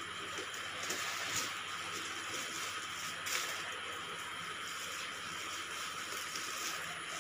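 Black plastic packaging rustling and crinkling as it is cut and pulled off a new backpack, with a few sharper crackles, over a steady hiss.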